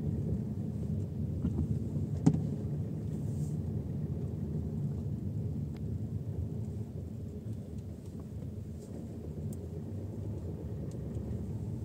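Steady low road and engine rumble inside a moving Ford Kuga's cabin, with one sharp click a little over two seconds in.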